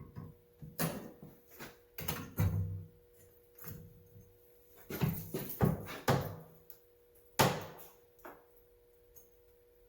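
Metal clanks and knocks as a Cornwell stubby 1/2-inch wrench is fitted and forced on a nut, several separate knocks with the loudest about seven and a half seconds in. The nut does not turn and the wrench's jaws spread slightly.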